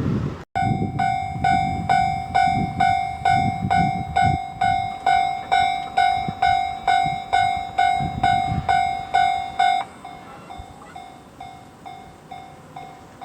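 Japanese railway level-crossing warning bell ringing, a pitched electronic ding repeating about twice a second. About ten seconds in it drops to a much quieter level and keeps ringing.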